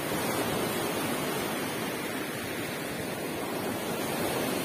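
Surf on a beach: a steady rush of small waves breaking and washing up the shore.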